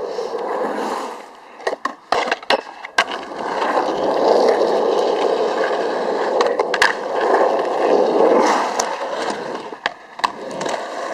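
Skateboard wheels rolling with a steady rough rumble, broken by sharp clacks of the board's wooden deck popping and slapping down, a quick cluster of them about two seconds in and a few single ones later, before the rolling picks up again.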